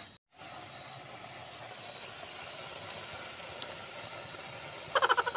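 Steady hiss of a pot of chicken simmering over an open wood fire, steam and fire together. Near the end comes a short, loud burst of rapid clicking.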